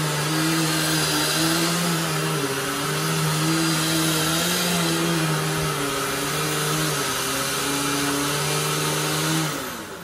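Dirt Devil Vision Wide Glide bagless upright vacuum cleaner running in place on carpet, a steady motor hum that wavers slightly in pitch. It is switched off near the end and winds down.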